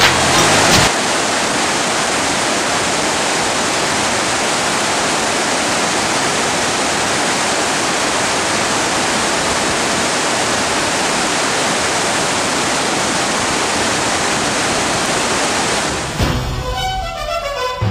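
Loud, even rush of river water running over rocks, with no change in level. Music cuts in about a second before the end.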